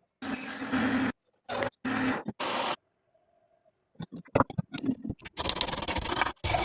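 A motor-driven abrasive tool working the rusty steel of a cleaver, in several short bursts that start and stop abruptly. After a pause comes a run of sharp clicks and taps, and then a longer stretch of grinding.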